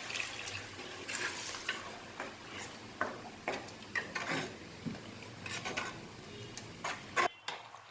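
A spoon stirring and scraping in a cooking pot, with irregular clinks and scrapes over a light sizzle of frying masala; the sound cuts off abruptly near the end.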